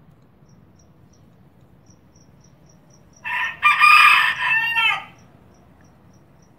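A young miniature (bantam) rooster crowing once, about two seconds in all: a short first note, then a longer call that ends in falling notes. The bird has only just begun to crow. Faint cricket chirps go on in the background, about four a second.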